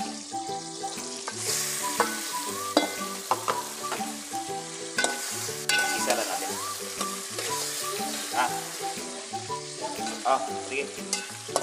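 Raw chicken wings sizzling in hot oil in a metal pot, the sizzle swelling about a second and a half in as they go in. A metal ladle stirs them, knocking and scraping against the pot now and then.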